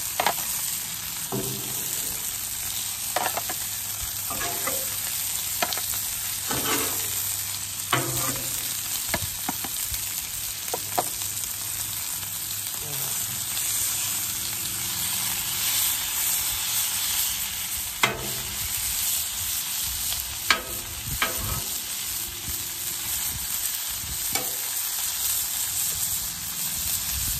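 Sausage links and ground breakfast sausage sizzling in grease on a Blackstone 28-inch steel griddle. A metal spatula scrapes and clicks against the griddle top now and then.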